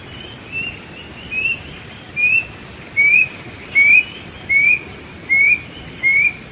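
A bird calling a series of eight short, rising whistled notes, about one every 0.8 seconds, getting louder after the first few.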